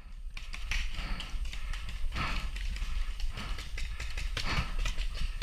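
Footsteps of a player moving over the ground, with gear rustling and knocking, over a steady low rumble.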